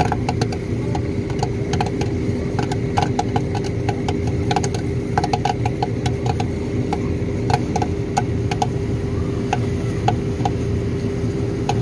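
Popcorn popping in the kettle of a popcorn machine: quick, irregular pops and clicks over a steady low hum.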